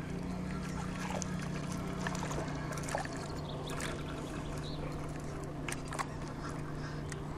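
Water lapping and trickling around an inflatable boat over a steady low hum, with a few light clicks, about 3 and 6 seconds in, as a small fish on a spinning rod is brought to the boat and taken in hand.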